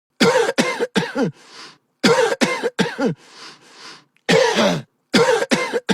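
A person coughing in repeated fits: bursts of three or four harsh, voiced coughs, each dropping in pitch, with quieter breaths between the bursts.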